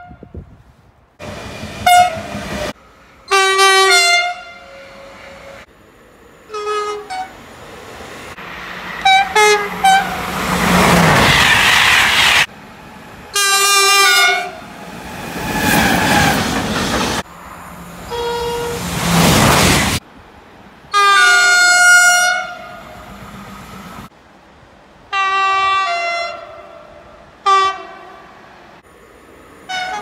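Horns of SNCF trains at a station sounding a string of blasts, some short and some held for about a second or two. In between, the rush of trains passing at speed can be heard.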